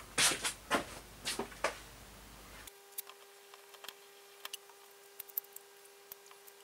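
Metal parts and hand tools handled on a workbench: several sharp clicks and knocks in the first second and a half, then only faint scattered ticks.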